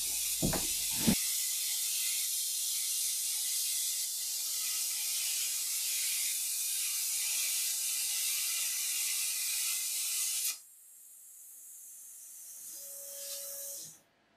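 CNC plasma cutter cutting steel plate: a steady, loud hiss of the plasma arc and gas jet, with two low thumps in the first second. The hiss cuts off sharply about ten seconds in, and a fainter hiss rises until shortly before the end, with a brief steady tone near the end.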